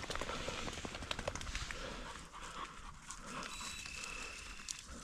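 A hunting setter panting close by, with scattered clicks of movement and footsteps. About three seconds in, a steady high tone sounds for over a second.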